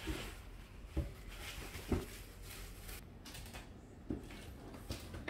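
Faint room noise with a few soft, separate knocks and thumps, the loudest about one and two seconds in.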